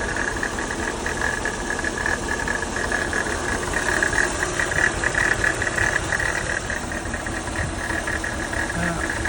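Mercedes CL500 (C215) V8 idling with a steady high-pitched whine over the engine's running, from the power-steering pump: its bearing is worn and needs replacing.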